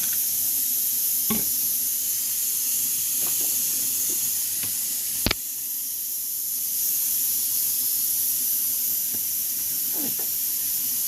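Steady sizzling hiss of food cooking in a pan on the stove. A few light utensil knocks sound over it, and one sharp click about halfway through is the loudest.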